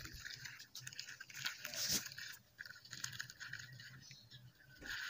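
A soft lump of red dirt crumbling and squishing between hands in water: wet crackling and crunching with small splashes, loudest about two seconds in.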